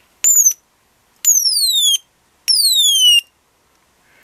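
Electronic bird-chirp generator circuit on 4.5 V of batteries, giving three chirps as its push button is pressed: each starts abruptly and glides down in pitch, the first short, the next two longer. The falling pitch comes from the timing capacitor changing its charge after each button press.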